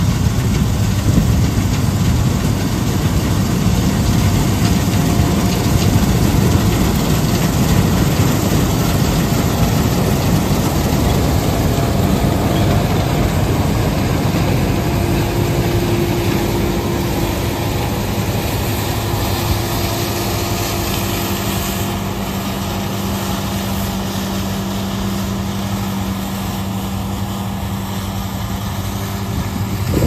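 Lexion 560 combine harvester running as it cuts soybeans, a loud, steady heavy machine drone. Loudest in the first half, it eases a little later on as a steady hum comes through.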